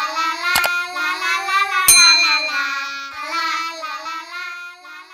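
A child's voice singing a short intro jingle, with a sharp click about half a second in and a click with a bright ringing ding about two seconds in: the sound effects of a subscribe-button animation.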